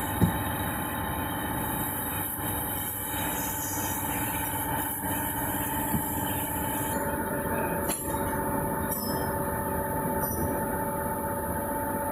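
Steady drone of running factory machinery with a constant high whine, with a short knock near the start and another about six seconds in.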